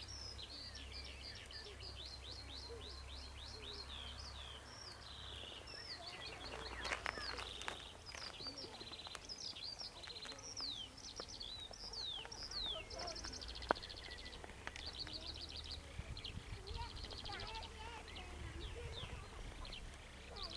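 Songbirds singing over a low steady rumble: quick series of high descending notes, trills and buzzy rattles, repeated throughout. One sharp click about two-thirds of the way through.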